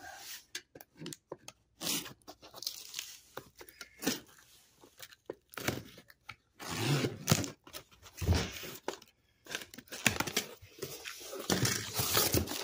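Taped cardboard shipping box being opened: a run of short tearing rasps as the packing tape comes off the seam, and cardboard flaps scraping open, with bubble wrap crinkling near the end.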